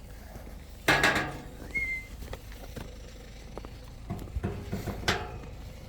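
A sudden noisy burst about a second in, then a short, high whistle on one steady note about two seconds in, followed by scattered faint knocks.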